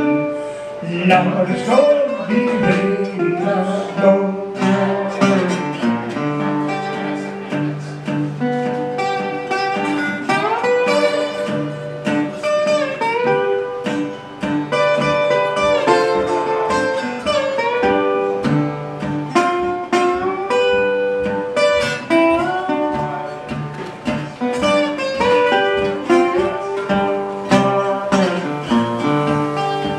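A metal-body resonator guitar played solo in a country blues style, with notes sliding up and down in pitch.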